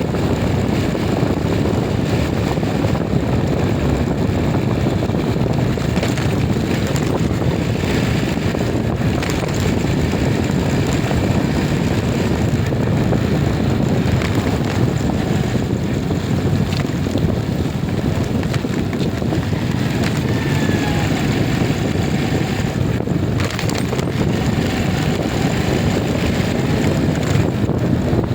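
Steady running noise of a moving vehicle mixed with wind rushing over the microphone, unbroken throughout.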